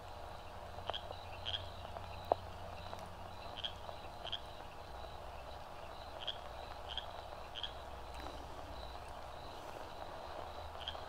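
Faint night-time chirping: short high chirps every half second to a second over a steady high trill, with a low hiss beneath and one sharp click about two seconds in.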